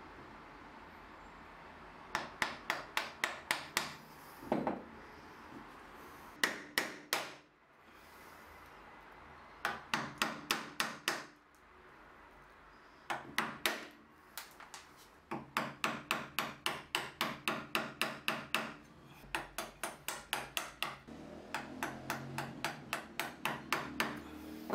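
A mallet striking a wood chisel, chopping out the waste between dovetail pins: quick runs of sharp taps, several a second, broken by short pauses as the chisel is reset.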